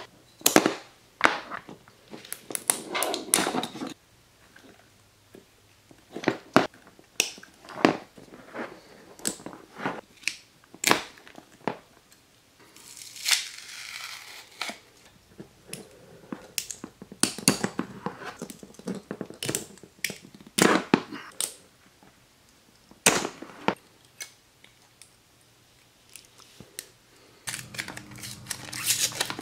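An 18650 lithium-ion battery pack being broken apart by hand: irregular sharp clicks and snaps as cells and wires are pulled free and handled, with a longer rustle of wrapping about 13 seconds in.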